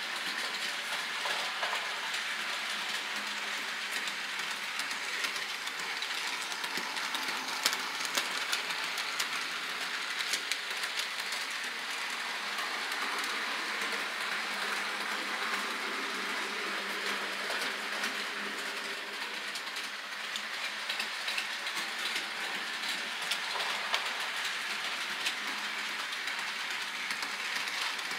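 Model train running on the layout's track out of sight: a steady rattle of wheels and motor with scattered sharp clicks.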